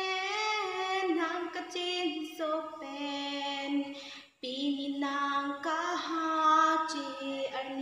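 A woman singing solo, unaccompanied, in long held notes that slide between pitches, with a short breath pause about four seconds in.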